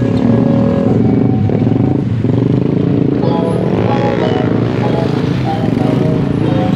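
Many small motorcycles and scooters running and passing close by in a steady stream.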